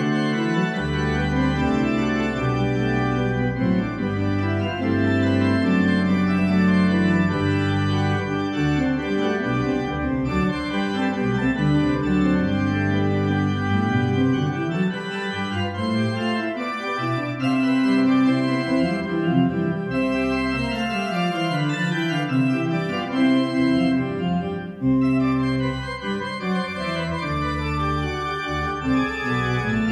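Organ playing a Grade 7 exam piece: full held chords with moving inner parts over deep bass notes, continuing throughout with a brief dip in loudness about 25 seconds in.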